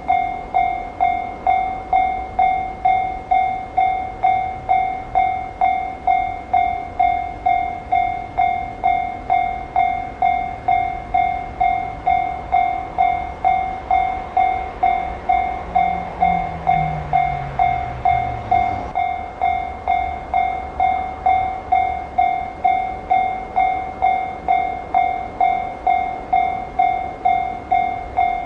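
Japanese level-crossing warning bell ringing in a steady ding-ding, about one and a half strikes a second. Under it a train passes: a low rumble and a louder swell with a falling hum about two-thirds of the way through, then the rumble dies away.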